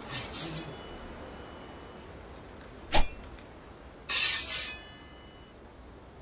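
Light clinks of small hard objects, each with a brief high ring: one at the start and a longer one about four seconds in, with a sharp click between them about three seconds in.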